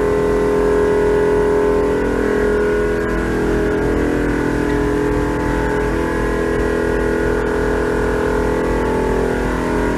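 A truck's onboard air-suspension compressors running with a steady, even hum, filling the air tank from about 80 PSI toward the 100 PSI needed.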